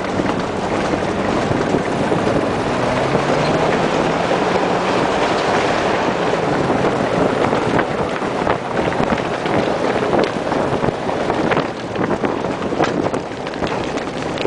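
Car driving fast over rough, stony ground: the engine runs under wind buffeting the microphone, with many small knocks and rattles from the bumpy ride. The engine note rises in the first few seconds.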